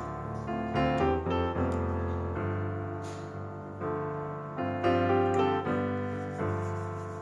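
Background piano music: a succession of gentle notes and chords, each starting clearly and fading.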